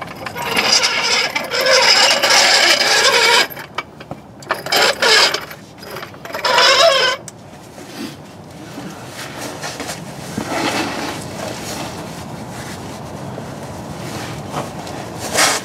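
Steel floor jack being rolled and pushed across concrete into place under the car's rear frame rail, its wheels and frame rattling and scraping in three loud spells in the first half. It goes fainter after that, with a short sharp knock near the end.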